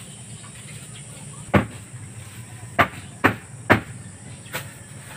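Five sharp knocks at uneven intervals, starting about a second and a half in; the last one is fainter. A steady low hum and a steady high hiss run underneath.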